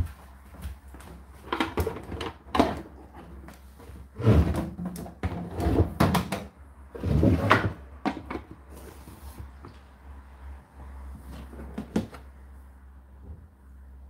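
Irregular knocks, bumps and rustling from an Indesit condenser tumble dryer being handled, its door and plastic front panels knocking, heaviest between about four and eight seconds in, then a single click near the end.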